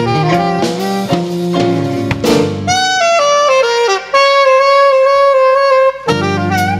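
Saxophone playing a jazz melody over a backing accompaniment. About four seconds in, the backing drops away and the saxophone holds one long note before the band comes back in.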